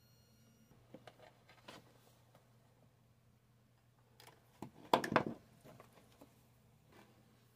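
A small electric nail drill's high whine cuts off within the first second. Then come clicks and, about five seconds in, a loud burst of clattering knocks as the drill handpieces are handled and set down on the table.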